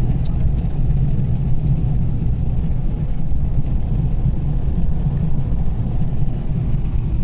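Steady low road rumble and engine drone inside a moving car's cabin.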